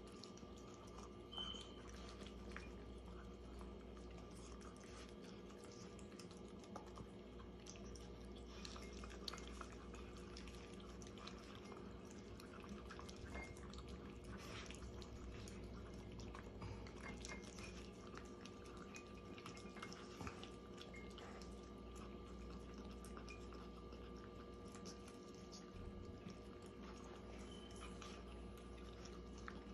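Two Yorkshire terriers eating from their bowls: faint chewing with many small, scattered clicks of food and teeth against the bowls, over a steady low hum.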